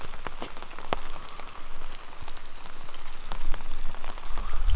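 Rain pattering in an irregular scatter of ticks, with the crackle and rustle of leaf litter under a dog rolling on its back.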